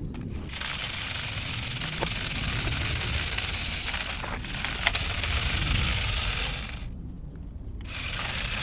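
Toy-grade RC car with omni wheels driving over hard ground: a steady scraping, rattling hiss from its wheels and small motor. The sound breaks off for about a second near the end, then resumes, with a few sharp clicks along the way.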